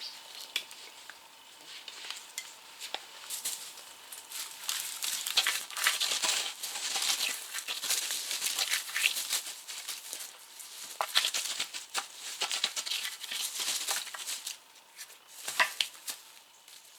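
Camping gear being packed up by hand: bags and fabric rustling, with short clicks and knocks of items handled and stowed, busiest through the middle and dying down near the end.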